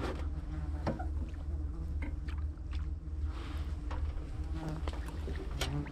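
Motorboat engine running at idle, a low steady drone, with a few faint clicks over it.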